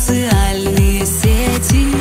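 Background music: an electronic dance track with a steady kick drum about twice a second under sustained synth tones.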